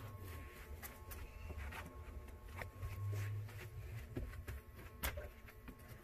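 Quiet room with a low steady hum and a few faint, scattered clicks and knocks from someone moving about and handling things.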